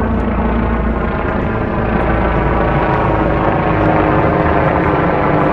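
Helicopter flying low overhead, its rotor and engine noise loud and steady throughout.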